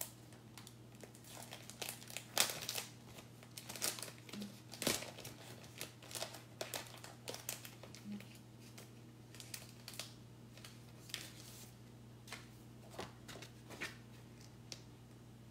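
Crinkling and rustling of sticky plastic Chalk Couture stencil transfers and their backing sheets being handled, in scattered short crackles, a few louder ones in the first five seconds.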